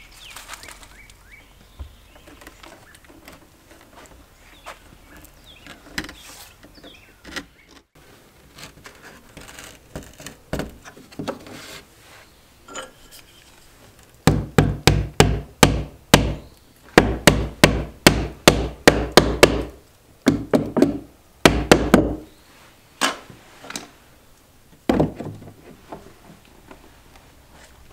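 A claw hammer striking a wooden window frame in quick runs of sharp blows for about eight seconds, fixing it into its opening, with a few last strikes after a pause. Before the hammering there are only scattered soft knocks.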